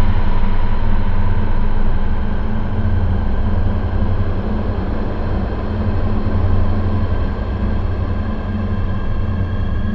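Experimental dark ambient music: a steady low droning rumble under a wash of noisy hiss, with faint held higher tones.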